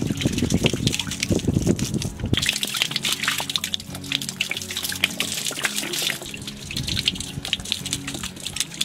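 Water poured from a plastic bottle splashes and gurgles into a shallow muddy pit for about two seconds. After that comes a scatter of drips and trickles, with background music.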